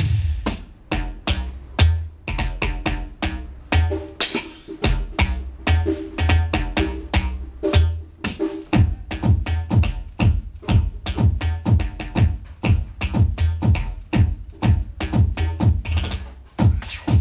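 Yamaha electronic drum kit played in a fast drum solo through its amplification: a dense, even run of pad and cymbal strikes over deep kick thumps.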